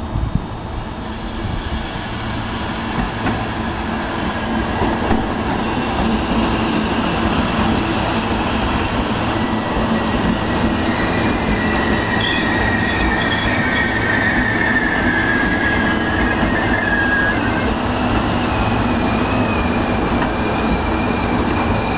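Regional passenger train rolling slowly into the station, its rumble growing steadily louder. High wheel and brake squeals come in about a third of the way in and again near the end as it slows.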